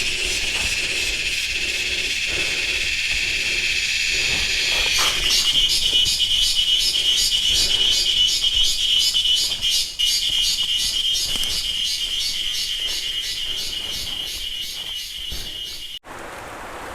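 Forest insect chorus: a steady high buzzing with a regular pulsing beat of a few pulses a second. A second, louder pulsing insect call joins about five seconds in. The sound cuts off abruptly about a second before the end, and a quieter, even hiss follows.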